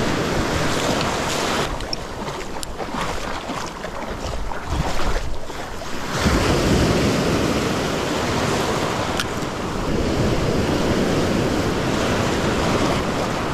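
Small surf waves breaking and washing through the shallows, with wind buffeting the microphone; a bigger wash surges in about six seconds in.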